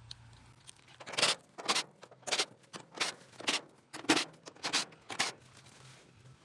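A run of short, sharp scraping strokes, about two a second, that stops a little after five seconds in.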